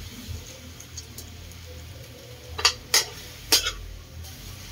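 Pork cubes frying with a faint sizzle in a metal wok while a metal spoon stirs them, striking the pan three times in quick sharp clanks in the second half.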